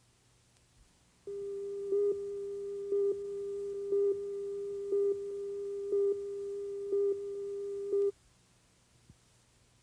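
A steady electronic tone that swells into a louder beep once a second, seven times over about seven seconds, then cuts off suddenly.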